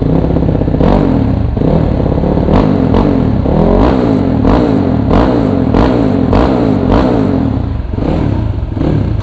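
The GazGas GE 250 GZ2's 250cc four-stroke SOHC four-valve engine, revved in quick repeated throttle blips for a sound check, its pitch rising and falling with each one. It settles back toward idle near the end, and the rider calls the sound fierce.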